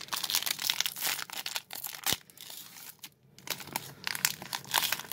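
A foil trading card pack wrapper being torn open and crinkled by hand: dense crackling rustle, with a sharp click about two seconds in and a brief pause about three seconds in.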